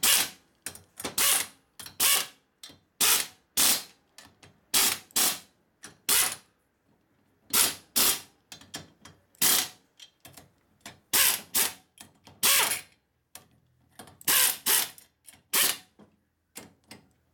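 Hose-fed inline air tool spinning in many short bursts, running down the thin nuts on the rocker arm studs of a 1950 Harley-Davidson Panhead cylinder head, with a pause of about a second a little before halfway.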